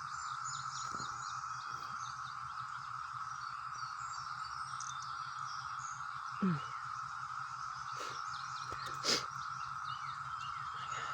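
Steady, even drone of a Brood X periodical cicada chorus, with many birds chirping and singing over it. Two brief louder sounds stand out, a short falling sweep about six and a half seconds in and a sharp click about two and a half seconds later.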